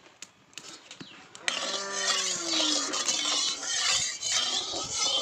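A spatula scraping across the bottom of an aluminium kadai as it spreads hot mustard oil. A loud, dense scraping hiss starts suddenly about a second and a half in and carries on until near the end.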